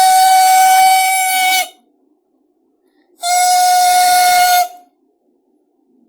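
Furniture squeaking as it is pushed across a tile floor: two long, steady, high squeals, the first trailing off about a second and a half in, the second lasting about a second and a half near the middle.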